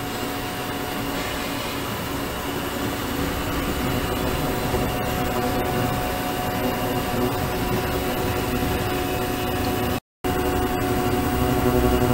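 Ultrasonic cleaning bath running: a steady hiss with a constant hum underneath. It cuts out for an instant about ten seconds in.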